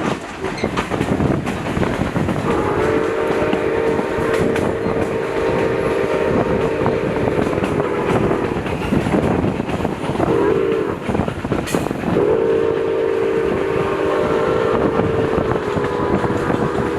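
Steam whistle of Milwaukee Road 261, a 4-8-4 steam locomotive, sounding a chord of several notes: a long blast, a short one, then another long one, the pattern of a grade-crossing signal. Under it runs the steady rolling and clickety-clack of the train's wheels on the rails.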